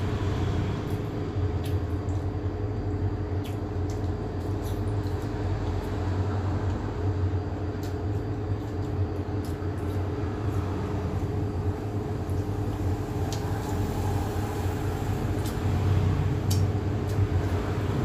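Steady low machine hum, with faint light clicks now and then.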